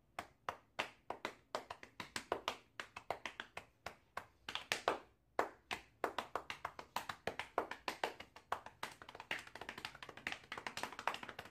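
Chest drumming: a rhythmic beat of sharp hand slaps on the chest and body, several a second, quickening into fast runs in places and stopping near the end.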